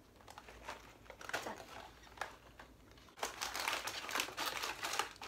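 A small cardboard box is handled and opened, with scattered light taps and scrapes. From about three seconds in there is a louder, steady crinkling of plastic packaging as the contents are rummaged through.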